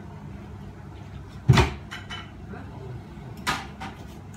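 Kitchen cupboard doors knocking as a plate is fetched: a loud, heavy knock about one and a half seconds in and a lighter one about two seconds later.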